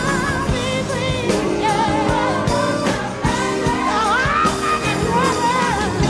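Background music: a song with a singer's voice wavering in vibrato over drums and accompaniment.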